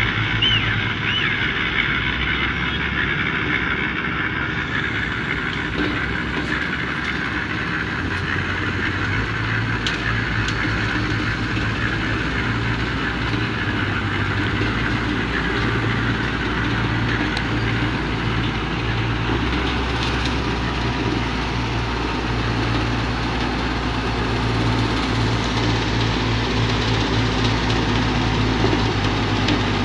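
SEM 917 motor grader's diesel engine running steadily under load while its blade cuts and pushes dirt, the engine note shifting a few times.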